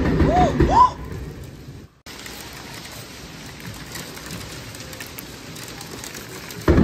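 Thunder crack from a very close lightning strike, loud for about a second, then steady rain. The sound drops out briefly about two seconds in, and another short loud burst comes near the end.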